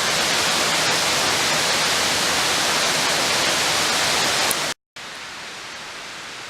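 Waterfall rushing, a steady even roar of falling water; about 4.7 seconds in it cuts off abruptly and comes back much quieter.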